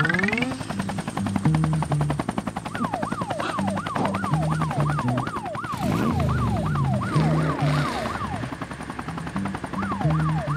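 Police-siren sound effect: a quick falling sweep repeated about two to three times a second, starting a few seconds in, over a music track with a stepped bass line.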